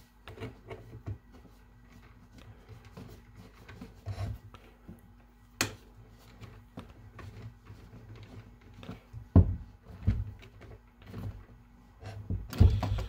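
A hex key turning small screws to fasten a metal picatinny rail to a rifle's bottom mount: faint scraping and ticking of metal parts. There is a sharp click about halfway through, a few dull knocks about two-thirds of the way in, and a louder cluster of handling knocks near the end.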